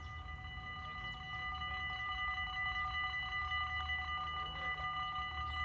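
Dutch level-crossing warning bells, several electric bells, ringing together in a fast, continuous ring that gets louder about a second in. They signal an approaching train, with the half-barriers about to come down.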